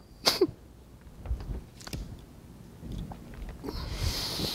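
A man's breathing picked up close on his microphone: a quick, sharp breath just after the start and a longer hissing breath near the end, with a few soft low thumps in between.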